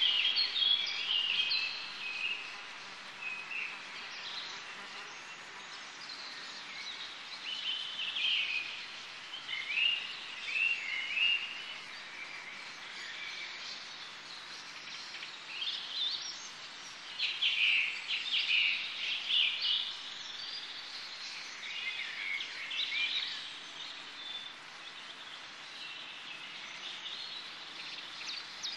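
Birds singing: short chirping phrases that come and go every few seconds over a steady faint hiss.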